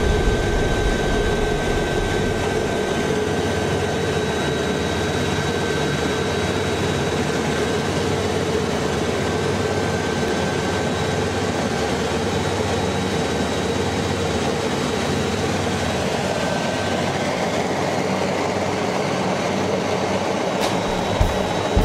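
Aérospatiale SA 315B Lama helicopter in flight, heard from inside the cabin: a steady drone of rotor and turbine with a thin high whine over it.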